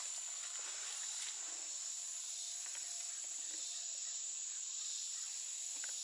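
Steady, high-pitched drone of a summer insect chorus, unbroken throughout.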